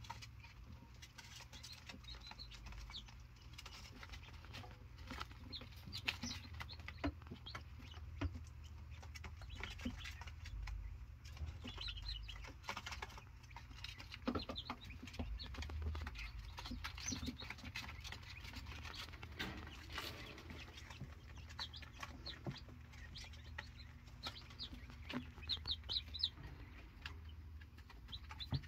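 Young quail chirping softly and intermittently, short high calls every few seconds with a quicker cluster near the end, along with scattered light ticks over a low steady hum.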